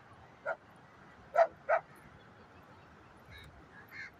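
Short, sharp animal calls: three loud ones about half a second, a second and a half and nearly two seconds in, then two fainter ones near the end, over a faint steady wash of surf.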